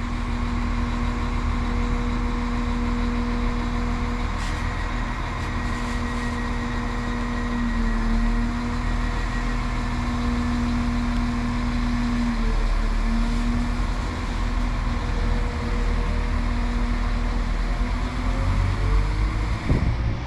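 Northern Class 195 diesel multiple unit idling at the platform with a steady engine hum. Near the end its engine note starts to rise as it begins to pull away.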